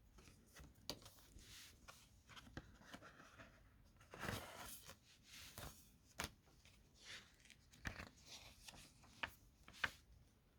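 A CD's packaging being handled and unwrapped: faint rustling and crinkling with sharp clicks scattered through, and a longer, louder rustle about four seconds in.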